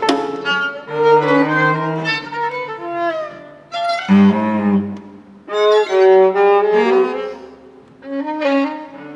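String trio of violin, viola and cello playing contemporary classical music in short phrases broken by brief pauses, with a strong low note coming in about four seconds in.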